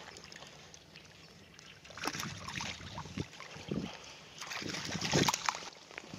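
A hooked bass splashing at the water surface as it is reeled in beside the boat and lifted out. The splashing comes in irregular bursts from about two seconds in and is loudest around five seconds.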